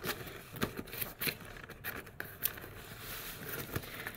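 Hands handling a cardboard delivery box: irregular light taps, scrapes and crinkles of fingers on the cardboard and its packaging.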